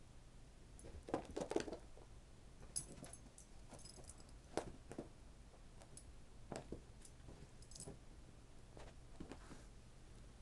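Faint scattered thumps and scuffles of a cat and a small dog moving about on a rug, loudest in a short cluster about a second in, with a few light high jingles around three seconds in and again near eight seconds.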